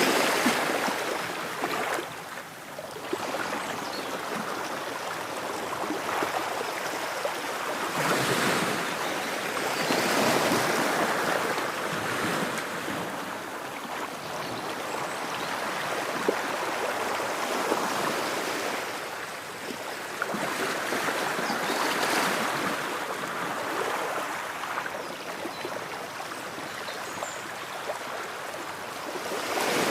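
Ocean waves: a continuous hiss of surf that swells and eases in slow surges every few seconds.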